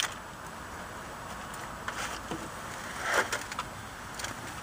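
Light taps and scuffs of a kitten's paws on a wooden board and loose bark chips, with one louder rustle about three seconds in.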